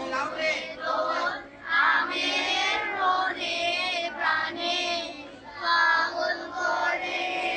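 A large group of schoolchildren singing together in unison, in phrases with short breaths between them.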